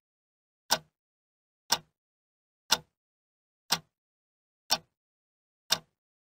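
Sharp ticks, one each second, six in all, with dead silence between them, like a clock counting off seconds.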